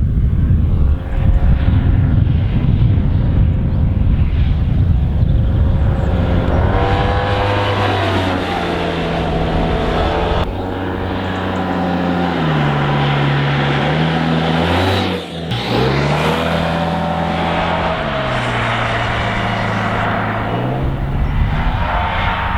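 Yamaha TMAX 530 maxi-scooter's stock 530 cc parallel-twin engine running. It starts as a heavy rumble, then its pitch rises and falls several times as the revs change, with a brief drop about fifteen seconds in.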